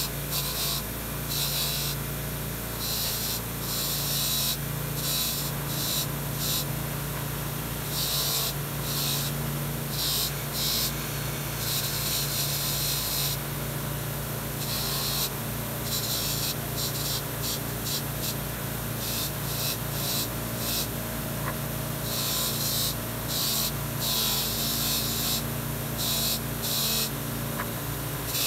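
Bench grinder motor running steadily with a wire wheel, and repeated scratchy hissing each time a small metal part is pressed against the spinning wires to brush it clean, in bursts from a fraction of a second to about two seconds long.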